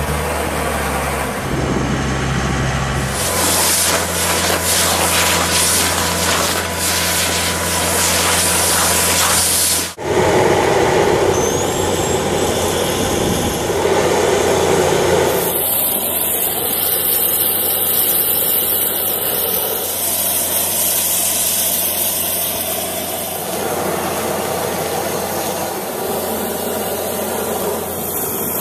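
Compressed-air vacuum excavator running: a loud rushing hiss of air and suction over the steady drone of an engine. The sound changes abruptly at about ten seconds and again at about fifteen seconds, turning to a brighter, higher hiss.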